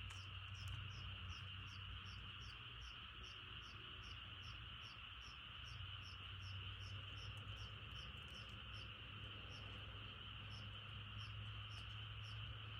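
A countryside chorus of frogs calling: a steady high trilling drone, with a sharper chirp repeating evenly about two or three times a second over it.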